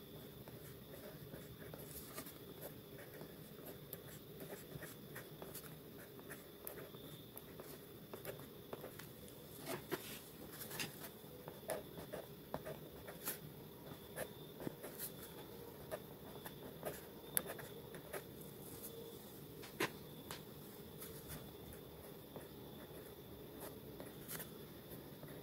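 Pen tip scratching and ticking on paper while letters are written by hand: a quick, irregular run of short strokes, with a few sharper taps as the pen is set down, over a faint steady hiss.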